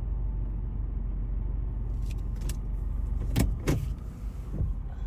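Steady low rumble of a car heard from inside the cabin, with a few sharp clicks and knocks in the second half, the loudest two close together about three and a half seconds in.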